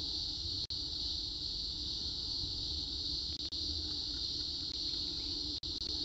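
A steady high-pitched buzzing drone with no rhythm, cutting out briefly twice.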